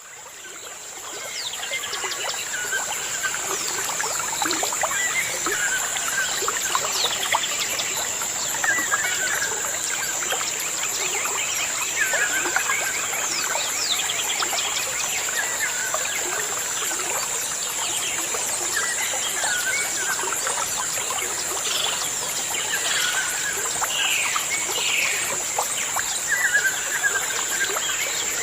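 Birds calling over trickling water, fading in over the first couple of seconds. One short call repeats about every two seconds among many quick falling chirps, over a steady high-pitched whine.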